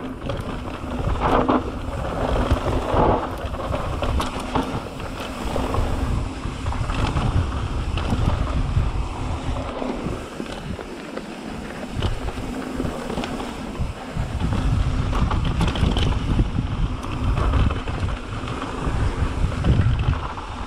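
Mountain bike riding down a dry dirt and rock trail: wind buffeting the action camera's microphone over a steady rumble of tyres on dirt and gravel, with many small clicks and rattles from the bike over rough ground.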